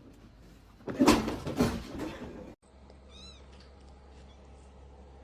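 Cats: a loud, harsh cry about a second in, lasting about a second and a half and stopping abruptly, then short, high-pitched meows, one just after the middle and one near the end.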